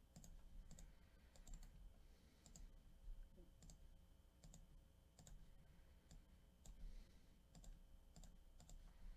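Faint computer mouse clicks, a dozen or so spaced unevenly, many heard as a quick double tick of press and release.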